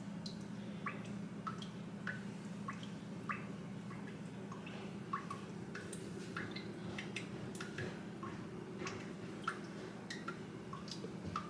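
Water dripping into water: short rising plinks at irregular intervals, a few a second, over a steady low hum.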